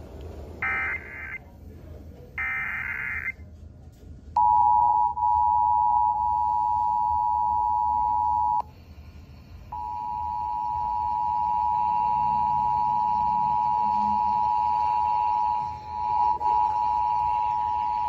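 Emergency Alert System signal through a small portable radio's speaker. It opens with a few short, shrill data bursts, then about four seconds in the steady two-tone attention signal starts. The tone breaks off for about a second midway as the radio is retuned to another station, then resumes.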